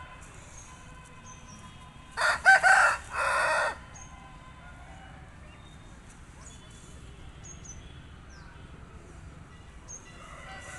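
A rooster crows once, about two seconds in. The crow lasts about a second and a half: a few short notes, then a longer held one.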